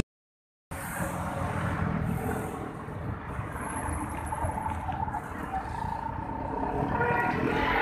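Road traffic: vehicles passing on the street, a steady rumble of engines and tyres that grows a little louder near the end. It begins after a brief silence.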